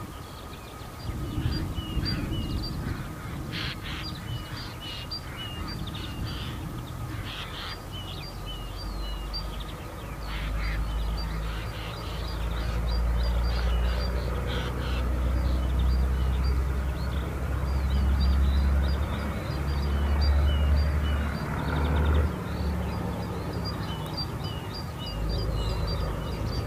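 Diesel engine of an Uerdinger railbus approaching and passing, a low rumble that builds from about ten seconds in and is loudest in the second half. Birds chirp throughout, with crows cawing in the first half.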